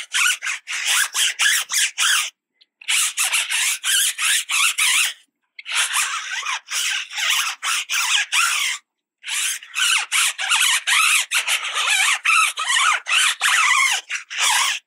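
A stiff-bristled tire brush scrubbing a foamy, degreaser-soaked rubber tire sidewall in quick back-and-forth strokes, about four a second. The scrubbing comes in four bouts with three short pauses between them.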